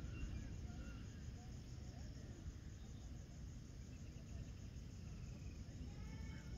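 Crickets trilling in a steady, fast-pulsing evening chorus over a low rumble of open-air background noise, with a few faint short calls scattered through it.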